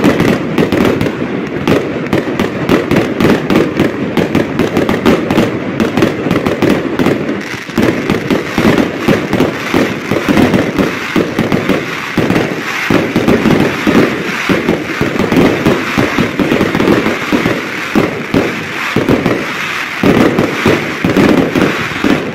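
Aerial fireworks display: a loud, continuous barrage of shell bursts, many bangs a second with no pause.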